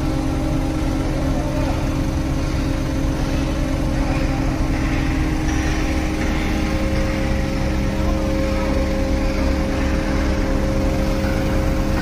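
A large crane's diesel engine running steadily while it holds a suspended load: a constant low drone with a steady hum.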